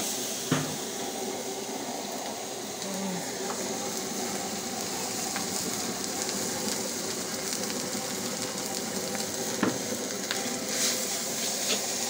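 Noodles, cabbage and sausage sizzling as they are stir-fried in a wok, with a metal spatula stirring and a few sharp knocks against the pan.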